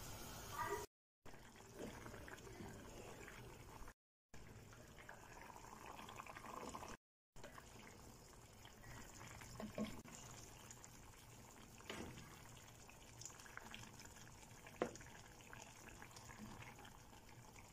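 Faint bubbling of a potato and mushroom stew simmering in a pan, with a few short knocks. The sound drops out three times for a moment.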